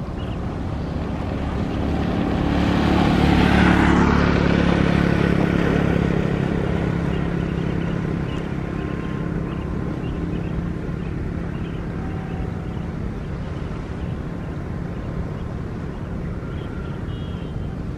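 A passing engine noise swells to its loudest about three to four seconds in, then fades, over a steady low hum.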